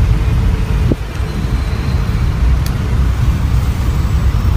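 Street traffic: a steady low rumble of passing vehicles, with a short knock about a second in.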